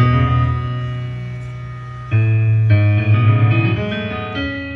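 Instrumental music played back through a 1950s Jensen 610 triaxial loudspeaker in an Onken cabinet, heard in the room. Sustained chords over a strong bass line: a new chord strikes at the start and another about two seconds in, then the notes shift and fade near the end.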